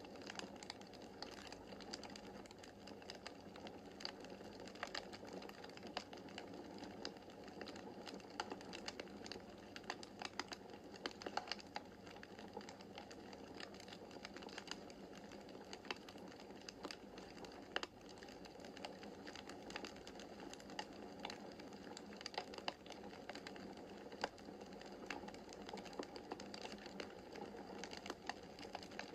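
Wood fire burning in a fireplace: logs crackling with frequent irregular pops and snaps over a steady soft rush of flame.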